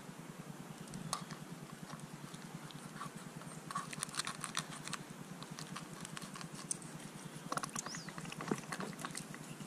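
Fillet knife slitting open a lake trout's belly to gut it: faint scattered clicks and scrapes in clusters, about a second in, from about four to five seconds, and again near the end, over a steady low hum.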